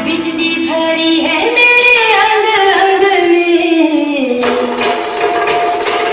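A recorded song playing for a dance, with a sung melody that holds notes and then slides downward, and the accompaniment changing about four seconds in.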